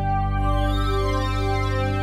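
Instrumental background music with long held chords; a brighter, shimmering high layer comes in about half a second in.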